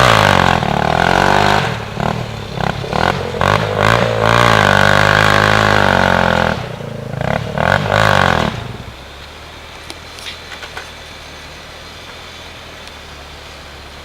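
ATV engine revving hard, its pitch rising and falling under throttle, for about the first eight seconds; then it drops away sharply, leaving only a faint steady low engine hum.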